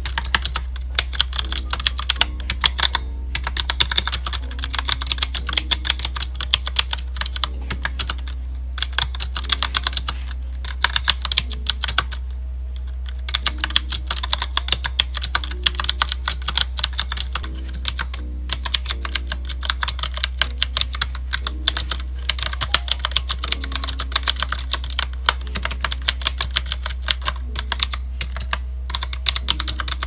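Continuous typing on a Qwerkywriter typewriter-style mechanical keyboard with round retro keycaps: a dense, fast run of key clicks broken now and then by brief pauses.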